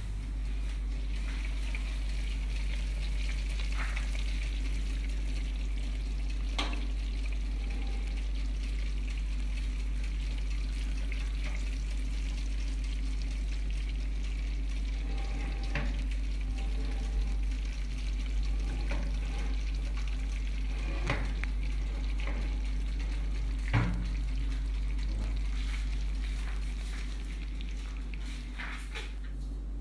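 Chicken and sliced potatoes sizzling in a hot baking tray fresh from the oven, over a steady low hum, with a few light clicks and knocks as the tray is handled.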